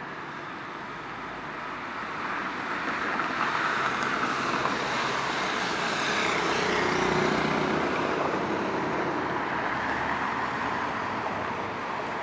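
Busy city boulevard traffic: cars and SUVs driving past with a steady wash of engine and tyre noise. It grows louder from about two seconds in as a group of vehicles approaches, is loudest around the middle, then eases slightly.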